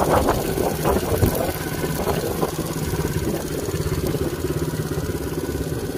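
ATV engine idling steadily, running evenly at low revs with no revving.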